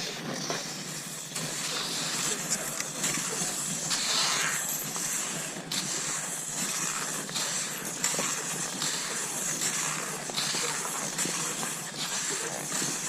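Cross-country skis gliding over snow, a steady hiss broken by a swish about every second or two as the skier strides.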